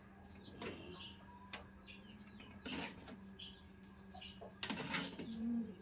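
Small birds chirping in quick, high, falling chirps, over and over, over a steady low hum, with a few soft knocks in between.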